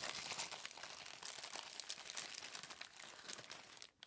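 Clear plastic bag crinkling and rustling as it is handled and a cast figure part is pulled out of it; the crinkling dies away just before the end.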